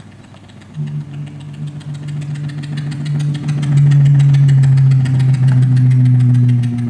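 A loud, low, engine-like drone played over the stage PA, starting about a second in and dropping a step in pitch midway, with a fast, even rattle of ticks over it.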